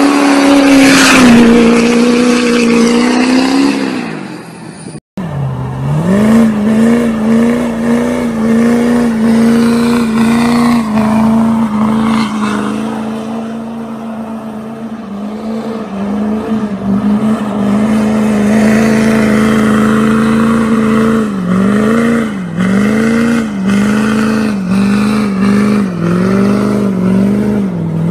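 Diesel pickup trucks doing burnouts: each engine is held at high revs while the rear tires spin, giving a steady high engine note. After a sudden cut a second truck holds its revs, and near the end the revs dip and recover several times in quick succession.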